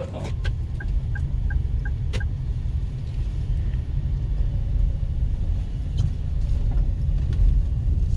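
Steady low rumble of a vehicle on the move. About half a second in, six short electronic beeps follow one another quickly at an even pace.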